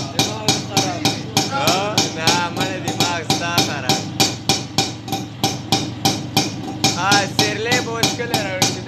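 Auto-rickshaw engine running, its exhaust giving a loud, even popping about four times a second.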